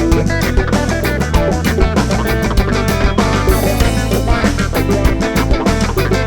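Live rock band playing a passage with no singing: guitar over a steady bass line and drum kit.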